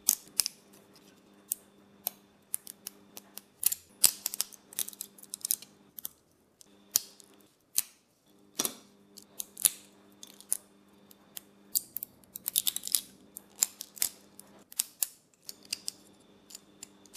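Support material being snapped and peeled by hand off 3D-printed plastic parts: many sharp, irregular plastic snaps and clicks, some coming in quick clusters.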